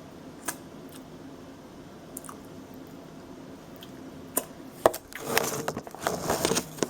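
A beer-battered veggie burger being handled and pulled apart: a few soft clicks, then about four seconds in a run of squishy, crunchy sounds with sharp clicks among them.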